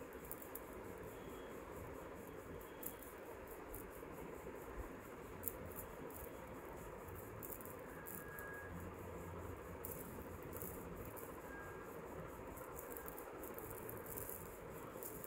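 Quiet steady hiss with scattered faint light clicks and small rattles, as of handling noise close to the microphone.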